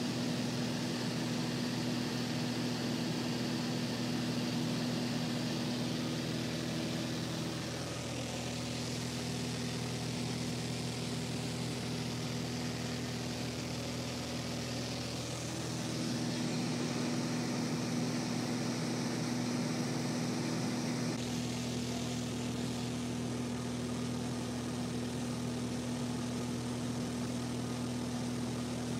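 Cabin drone of a Cessna 182Q Skylane in cruise flight: the six-cylinder Continental O-470 engine and propeller run steadily, a constant low hum with a hiss of airflow. Its tone shifts slightly a few times.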